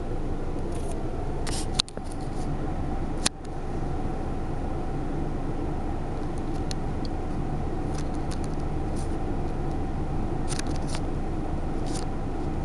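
Steady low rumble of a car's engine and cabin noise heard from inside the car. Two sharp clicks come about two and three seconds in, with faint scattered ticks later.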